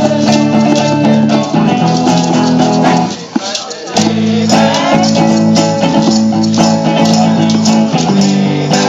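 A live band plays a pop song with strummed acoustic and electric guitars and rattling shakers, while voices sing along. The band drops out briefly a little over three seconds in, then comes back in.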